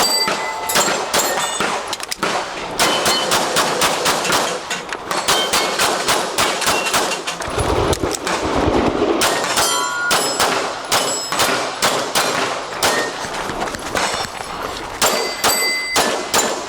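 Rapid pistol shots fired in quick strings, with steel targets ringing as they are hit. There is a short break in the shooting about halfway through, then the rapid shots and ringing steel resume.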